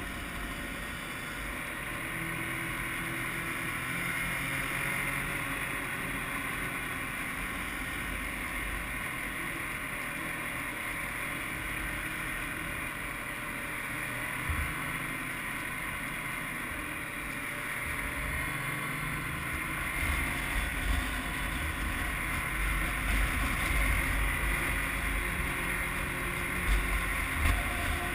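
Snowmobile engine running steadily under way, with wind rumbling on the microphone, somewhat louder in the second half.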